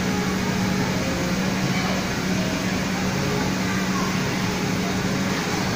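Steady mechanical hum and hiss with a constant low tone, under faint distant children's voices.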